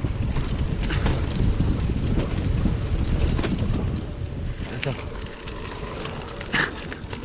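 Wind buffeting the microphone of a camera on a moving bicycle: a steady low rumble, stronger for the first few seconds and then easing.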